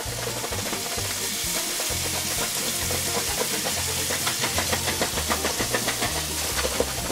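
Upbeat background music with a stepping bass line and a steady rhythm, over the steady sizzle of chicken wings frying in hot oil in a covered pan.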